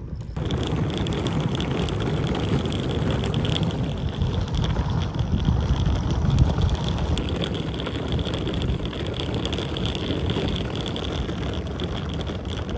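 Wind rumbling on the microphone, with a steady high hiss above it; the rumble swells a little around the middle.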